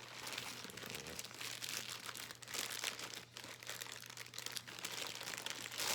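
Plastic wrapping crinkling and rustling continuously as small figure parts are handled and unwrapped, over a faint steady low hum.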